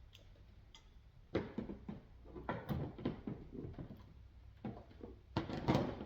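Irregular knocks and clatter of hand work on a car's coolant hose connection at the radiator: tools and hard plastic parts being handled. The loudest group of knocks comes near the end.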